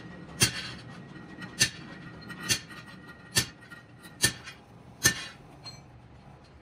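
Pillar drill boring out a broken wheel stud in a brake drum hub: a steady motor hum with a thin high tone from the bit cutting steel. Six sharp metallic knocks, evenly spaced just under a second apart, are the loudest sound and stop a little over five seconds in.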